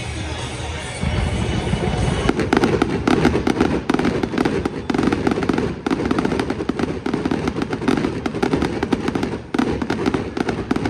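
Fireworks show: dense, rapid crackling, a fast run of many small pops that starts about two seconds in and keeps going, with music underneath.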